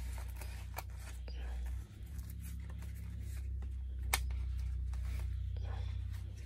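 Cardboard and plastic packaging being handled and pulled at: light rustling with scattered clicks, one sharper click about four seconds in, over a steady low hum.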